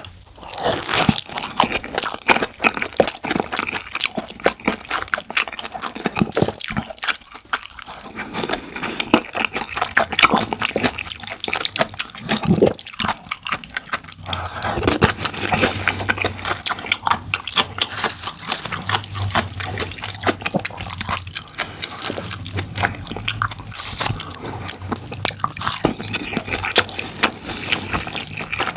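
Close-miked mukbang eating: a person chewing jajang and curry rice, with a steady stream of wet, sticky mouth clicks and smacks.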